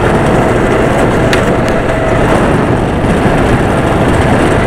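Go-kart's small engine running steadily at speed, heard from the driver's seat.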